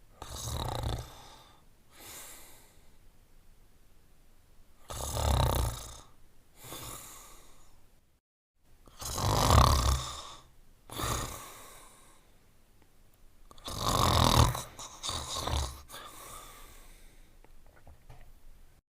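Cartoon dog snoring as a sound effect: four snores about four to five seconds apart, each a loud snoring breath in followed by a softer breath out. The third snore is the loudest, and there is a brief dead gap just before it where the clips are joined.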